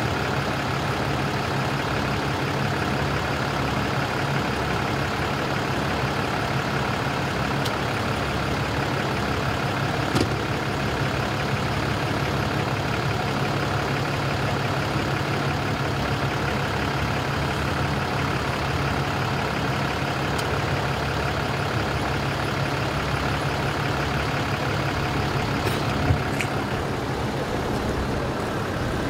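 Fire engine's engine idling with a steady low hum, and a couple of brief clicks about ten seconds in and again near the end.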